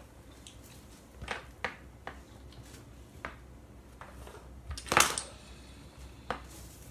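Dominoes clicking and clacking against one another as they are picked up and stood on end, a few sharp clicks at a time, with a louder cluster of clacks about five seconds in.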